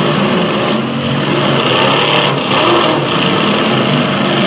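Demolition derby cars' engines running and revving, loud and steady throughout.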